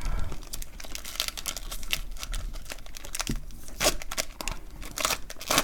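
Foil wrapper of a trading card pack being torn open and crinkled by hand, a run of irregular sharp crackles.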